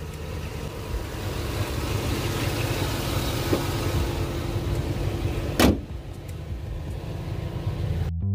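Cammed 5.3 L V8 of a Chevrolet Tahoe idling steadily, and a little past halfway the hood is slammed shut with a single loud bang.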